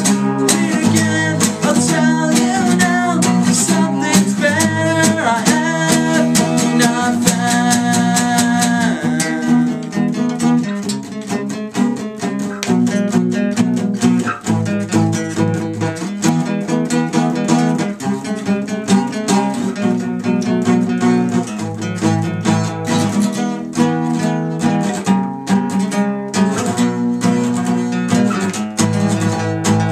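Music led by acoustic guitar, with a higher melody line over it for roughly the first nine seconds.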